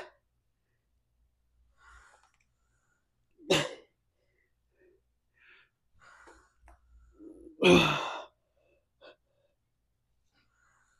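A man's forceful breaths out with the effort of cable fly reps, coming about every four seconds. The third, near the end, is the loudest and longest.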